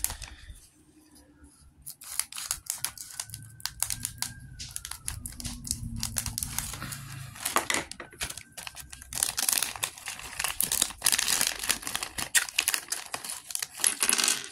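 A LEGO minifigure blind bag crinkling and tearing as it is opened, with sharp clicks of small plastic pieces being handled. The crinkling is densest in the last few seconds.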